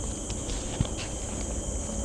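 A few light, irregular knocks and one sharper thump about a second in, over a steady low rumble and a steady high hiss.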